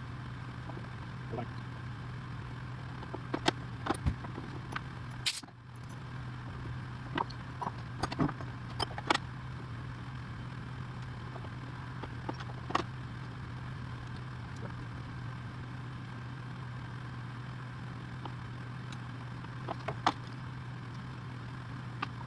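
Steady low machinery hum in a machine shop, with scattered light metallic clicks and clinks of tools and parts being handled. The hum briefly drops out about five seconds in.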